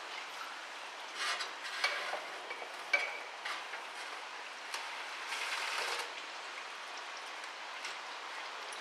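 A wrench clinking and scraping on the sump-pan bolts of a ZF 6HP26 automatic transmission as they are undone: a few short clusters of clicks and scrapes, the sharpest about three seconds in, over a steady hiss.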